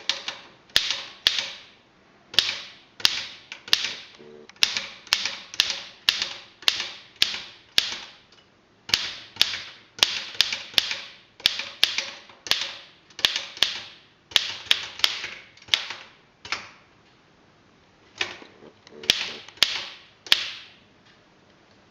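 Keys of an old Royal manual typewriter being typed: sharp single clacks, each with a brief metallic ring, about two a second in uneven runs, with a short pause twice.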